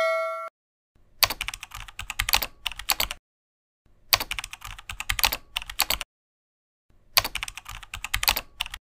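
Keyboard typing sound effect: three bursts of rapid key clicks, each about two seconds long, with a silent second between them.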